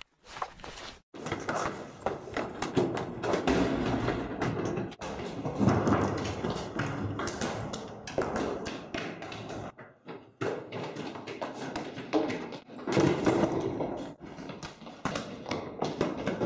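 A dense run of thumps, knocks and running footsteps on a hard floor, starting about a second in, as people run and vault over tables.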